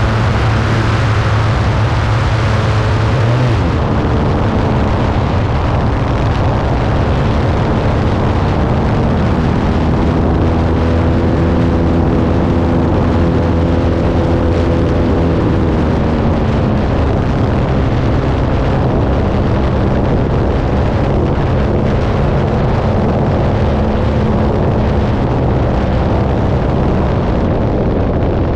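Model airplane engine running, heard from a camera on the plane's wing, with wind buffeting the microphone; the engine's pitch rises and falls with throttle changes several seconds in.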